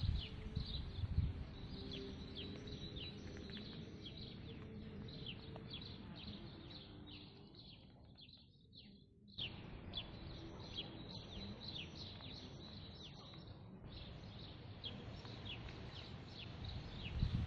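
Small birds chirping continuously in short, high, falling chirps, several a second. There is a low rumble on the microphone near the start and end, and the sound drops away briefly a little past the middle.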